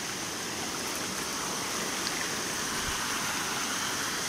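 Floodwater rushing steadily across a submerged road, a constant even rush of flowing water.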